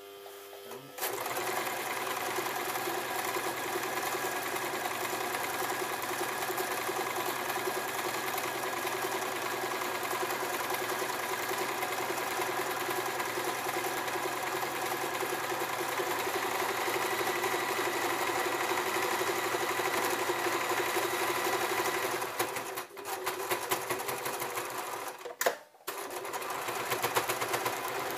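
Domestic electric sewing machine running steadily as it stitches a seam through hammock fabric. It starts about a second in, falters briefly, stops with a click near the end and starts again.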